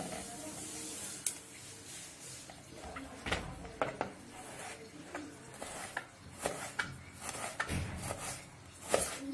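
A kitchen knife cutting small red onions on a wooden chopping board: irregular sharp knocks of the blade meeting the board, coming more often from about three seconds in, with the rustle of onion being handled and peeled in between.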